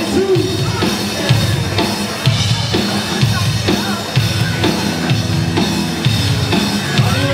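Music with a steady drum-kit beat and bass line.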